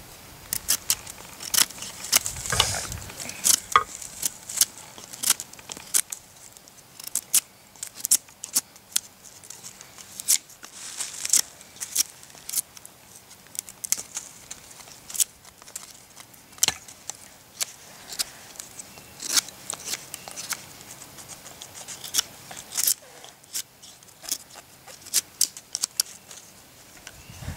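Knife blade whittling a wooden spoon blank: short, sharp cuts and scrapes of steel through wood, coming irregularly at about one to three a second.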